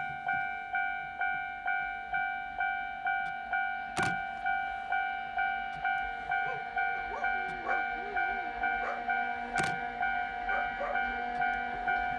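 Japanese railway level-crossing alarm ringing, an electronic ding repeating a little under twice a second with each stroke fading away. Two sharp clicks cut in, about four seconds in and again near ten seconds.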